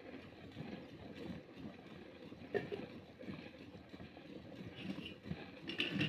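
Milk squirting from a cow's teats into a metal bucket during hand milking: a run of short splashing squirts, with a sharper knock about two and a half seconds in and another near the end.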